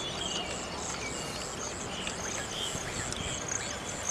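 Birds calling and chirping outdoors, with a high chirp that repeats at an even pace, about two or three times a second, over a steady background hiss.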